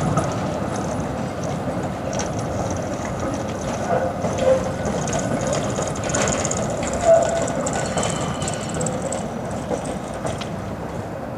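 Vienna E2 tram with its c5 trailer rolling slowly past through a curve, with steady wheel-on-rail noise and a few brief squeals and clicks. It grows quieter toward the end as the set moves away.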